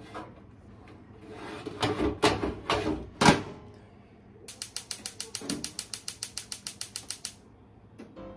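Metal clatter of a fish-grill rack and drawer being pushed shut on a gas stove, with a hard knock at the end. Then the gas grill's igniter clicks rapidly, about eight clicks a second for some three seconds, as the burner is lit.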